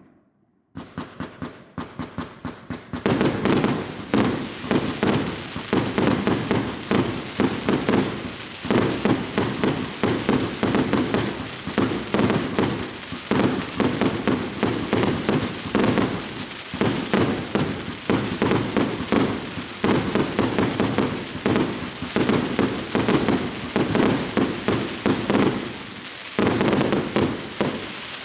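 A 100-shot, 1.2-inch firework cake firing: a rapid string of shots and shell bursts, a few a second at first, building about three seconds in to a dense, continuous barrage of bangs and crackle.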